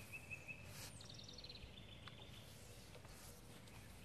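Near silence, with faint bird song: a few short, high trilled phrases, one after another.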